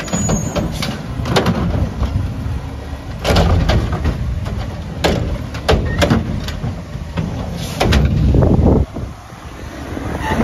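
Front-loader garbage truck with a cart-grabbing arm on its forks: the diesel engine is running, with repeated sharp metal clanks and bangs as the arm works. About eight seconds in, a loud surge of engine noise cuts off sharply.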